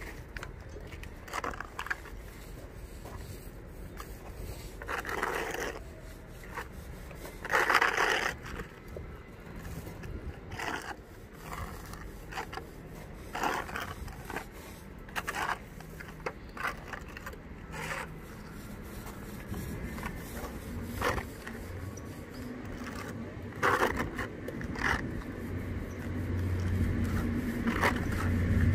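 A spatula scraping and smearing thick filler paste across a rough fibreglass-and-resin surface in irregular strokes, the loudest about eight seconds in. A vehicle engine's low hum builds up near the end.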